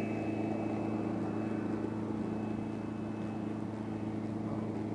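A boat's motor running steadily, an even low hum that holds the same pitch throughout.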